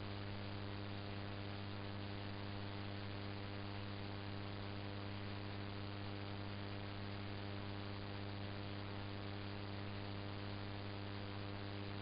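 Steady electrical mains hum, a low buzz with a stack of evenly spaced overtones and a faint hiss over it, unchanging throughout.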